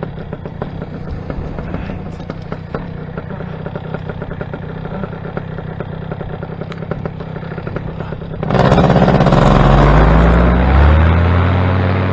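Paramotor engine and propeller droning in flight at steady throttle; about eight seconds in it suddenly gets much louder and its pitch climbs as the engine revs up.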